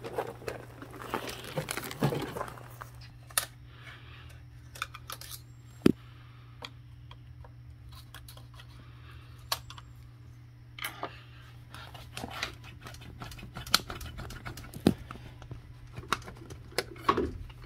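Scattered clicks and light knocks of a screwdriver and plastic engine-bay trim being handled and worked loose on a BMW E46, over a steady low hum.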